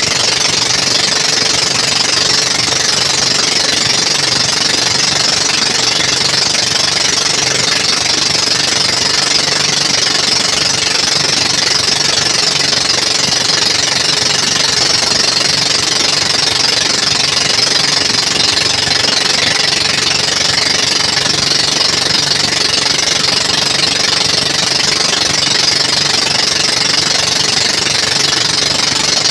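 Outrigger bangka's engine running steadily at cruising speed, loud and unbroken, with a steady hiss of wind and water over it.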